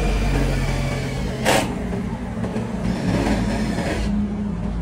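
An engine running steadily with a low hum, and a short noisy burst about a second and a half in.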